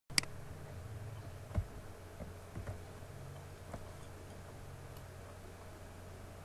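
Quiet room tone with a steady low hum, broken by one sharp click at the start, a soft knock about a second and a half in, and a few fainter clicks and knocks over the next couple of seconds.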